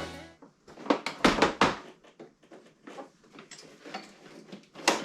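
Clattering knocks of hands handling parts and an oil jug while chaincase oil is added to a snowmobile: a quick cluster of sharp knocks about a second in, lighter ticks and taps, and two more loud knocks near the end.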